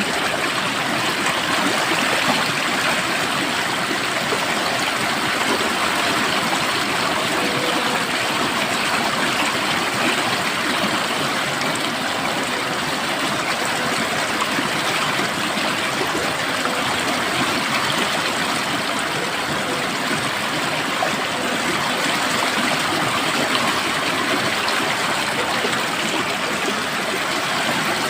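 Water flowing steadily in a stream, an even rushing babble with no breaks.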